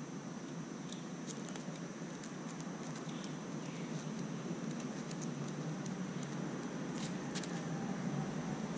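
Steady outdoor background hiss with a thin, steady high-pitched whine and a scattered handful of faint light ticks.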